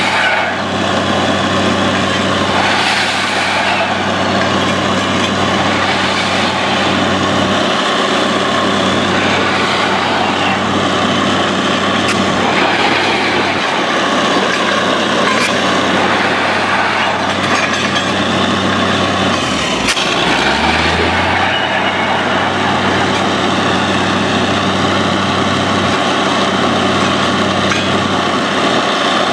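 Truck-mounted borewell drilling rig running steadily as it bores: a loud, constant engine drone under a dense hiss and rattle, with rock cuttings being blown out around the drill pipe. The low engine note wavers briefly about two-thirds of the way through.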